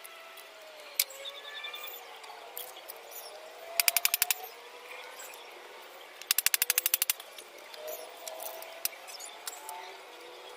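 Two short bursts of rapid, evenly spaced rattling knocks, about fifteen a second. The first, about four seconds in, lasts half a second; the second, a couple of seconds later, is longer. A few single sharp clicks fall in between.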